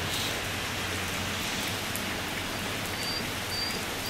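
Steady rain falling on wet pavement, an even hiss, with a few faint short high chirps in the second half.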